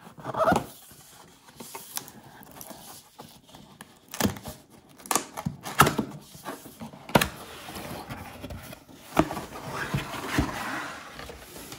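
Cardboard box being handled and its tabbed flap worked open: scattered taps and knocks of fingers and cardboard, then a rustling scrape as the lid is lifted near the end.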